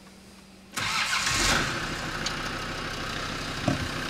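Land Rover Defender 90's Td5 five-cylinder turbo-diesel engine starting about three-quarters of a second in, running a little louder just after it catches, then settling into a steady idle.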